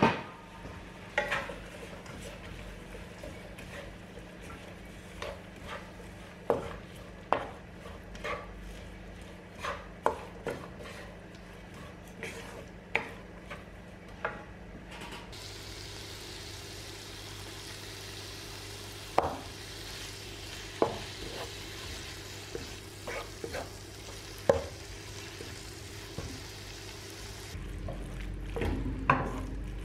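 Wooden spatula stirring and tossing vegetables in a stone-coated wok, with irregular knocks of the spatula against the pan over a soft frying sizzle.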